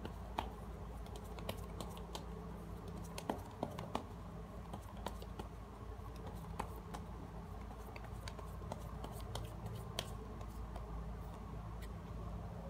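Light scattered clicks and taps of tarot cards being handled, over a steady low hum; a card is laid down on the cloth-covered table near the end.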